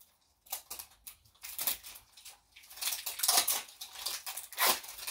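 Plastic wrapping crinkling and tearing as glitter-globe blind-package toys are peeled open by hand, in a string of short, irregular rustles that begin about half a second in.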